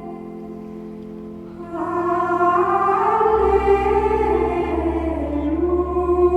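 Background music: a choir of women chanting plainchant in slow, held notes, swelling louder about two seconds in, with a low sustained note added underneath.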